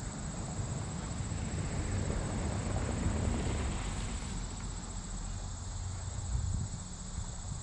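Insects trilling in a steady, high-pitched chorus over a low, irregular rumble, with a brief swell of broader rushing noise about three seconds in.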